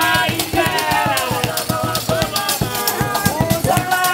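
A group singing together in several voices over fast, dense rattling percussion and a drum beat, played live.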